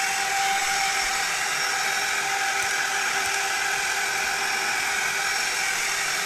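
Handheld hair dryer running steadily: an even rush of blown air with a steady motor hum. It is blowing hot air to dry water out of electric scooter wiring.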